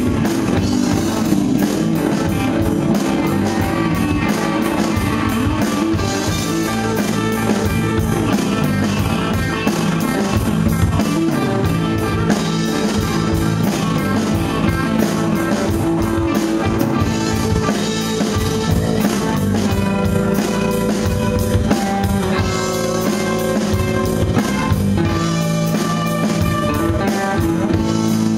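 Live rock band playing: two electric guitars, bass guitar and a drum kit keeping a steady beat, with no words heard.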